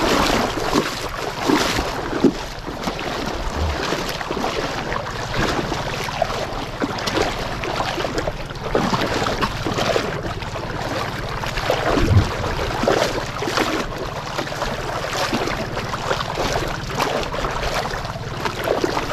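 Wind buffeting the microphone and sea water washing around a small fishing boat: an irregular, rushing noise with a faint low steady hum underneath.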